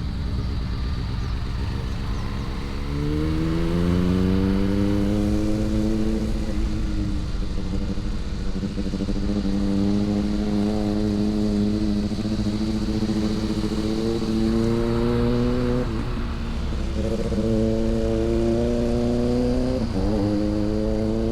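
Motorcycle engine pulling steadily under way. Its pitch climbs as it accelerates about three seconds in, holds, then dips and picks up again twice near the end as gears are shifted, over constant road and wind noise.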